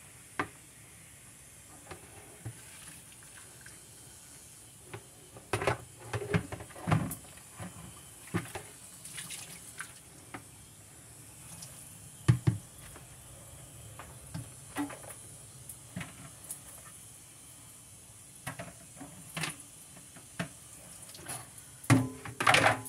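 A large plastic tub being hand-washed in a stainless kitchen sink: water running and splashing, with scattered knocks and clatters of the plastic against the sink, the loudest cluster near the end.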